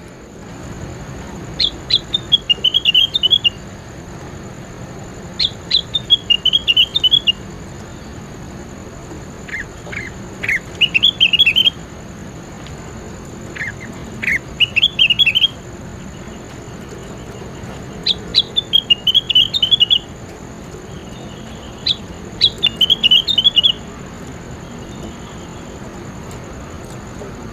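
A songbird singing in short phrases of quick, high chirping notes, about seven phrases each lasting one to two seconds and coming roughly every four seconds, over a steady background hiss.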